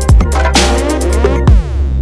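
Electronic dance music in a dubstep style, with heavy bass and a hard kick drum hitting at the start and again about a second and a half later. A swell of hiss comes up in the middle, and a falling pitch sweep follows near the end.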